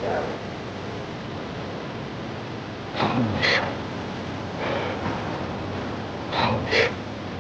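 A person breathing hard and gasping in three short bursts over a steady hiss, out of breath after swimming.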